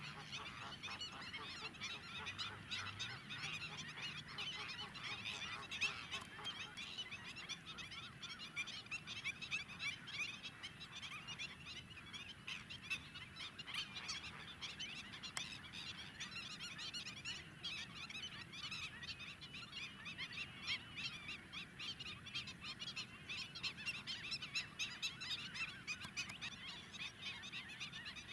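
A flock of greater flamingos calling together: a dense, unbroken chorus of short goose-like honks and chatter.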